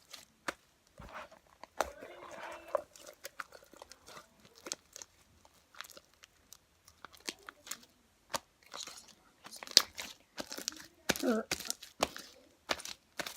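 Thick slime being squeezed and worked by hand, giving off irregular sticky clicks and crackles.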